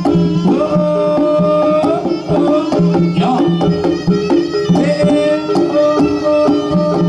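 Traditional-style music: hand-drum strokes under held melody notes, running steadily at a loud level.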